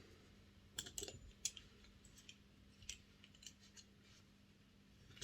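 Faint, scattered small clicks and taps, about eight of them, most in the first four seconds, from a model locomotive's Ringfield motor bogie being handled as its wheels are taken off.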